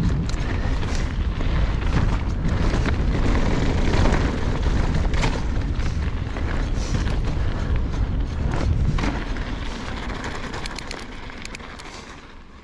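Wind buffeting a GoPro microphone over the rumble of mountain bike tyres on a loose gravel trail, with the bike rattling and clicking over bumps. It fades down over the last few seconds.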